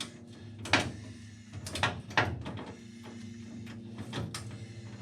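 Hand tools clicking and knocking on metal, a few separate sharp strokes, as the steering rack's mounting bolts and nuts are tightened toward 25 Nm. A steady low hum runs underneath.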